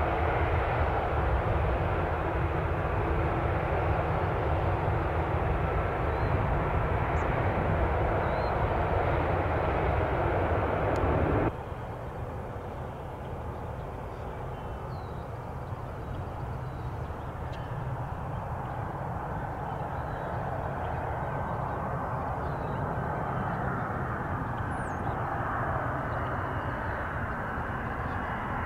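Aircraft engine noise: a loud steady rush that cuts off suddenly about eleven seconds in, followed by a quieter rush that slowly grows louder.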